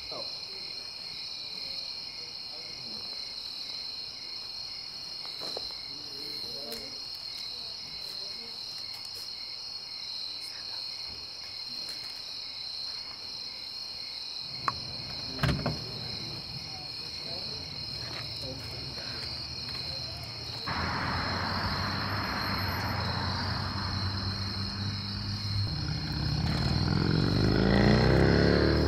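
Crickets chirping in a steady, high-pitched trill. A few sharp knocks come about halfway through. Near the end a car drives past, growing louder.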